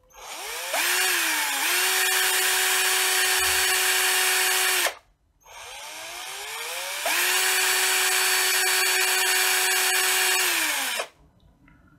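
Bosch cordless drill-driver running free, twice: each run spins up in a rising whine and then holds a steady pitch. The first run lasts about five seconds and stops abruptly. The second lasts about four seconds and winds down before stopping.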